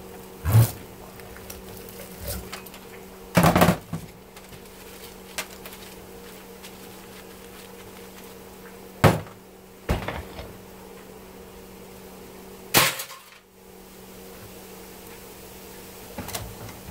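Sharp metal knocks and snaps as a screwdriver pries at a dishwasher motor's stator held in a bench vise and its copper windings are wrenched free. There are five loud strikes, with the loudest near the start and at about nine seconds, all over a steady hum.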